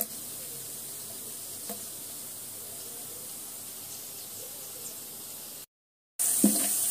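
Sliced onions frying in hot oil in a large steel pot: a steady quiet sizzle, with a couple of light taps. Near the end the sound cuts out for half a second, then comes back as a louder sizzle with a slotted spoon stirring through the oil.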